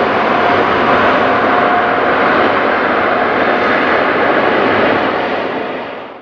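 Boeing C-17 Globemaster III's jet engines running with a steady noise and a faint steady whine in the first second, fading out near the end.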